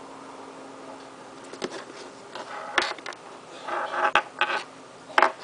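Hands handling product packaging: rustling and scraping with several sharp clicks, starting about a second and a half in.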